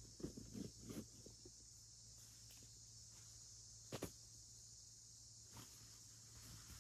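Faint rustling and light footsteps in dry grass and fallen leaves during the first second and a half, then a single sharp click about four seconds in, over a steady high hiss.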